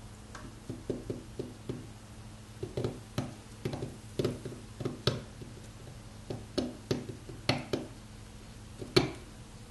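Steel seal-carving knife cutting into a stone seal: a run of short, sharp scraping clicks in irregular clusters, one for each stroke, the loudest near the end.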